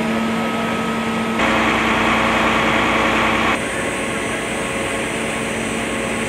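Fire truck engines running steadily, a constant engine drone with a low hum. It turns louder and hissier for about two seconds in the middle, then drops back abruptly.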